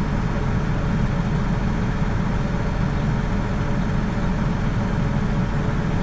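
Tractor engine running steadily, a dense, even low rumble heard from inside the cab.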